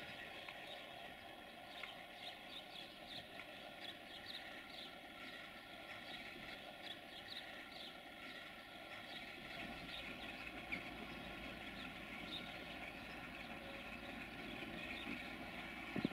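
Sulzer 12LDA28 diesel engine of an LDE2100 locomotive idling, heard from a distance as a faint steady hum of several tones. Short high chirps sound over it, and a low rumble comes up about halfway through.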